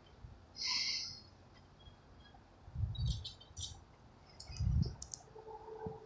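Faint, scattered clicks and soft low thumps, with a few short high chirps that sound bird-like.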